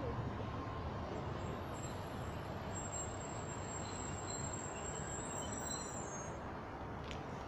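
Class 150 Sprinter diesel multiple unit running into the platform and braking to a stand, with a steady rumble and a thin, high brake squeal that sets in about a second and a half in and dies away a little after six seconds as the train stops.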